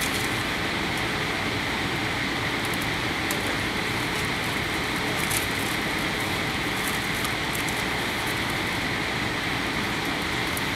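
Boeing 787 Dreamliner's cabin noise on descent: engine and airflow noise heard through the fuselage as a steady hiss with a faint hum.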